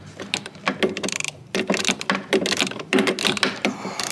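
Hand ratchet with an extension clicking in uneven runs of quick clicks as a fine-thread bolt is wound in a little at a time.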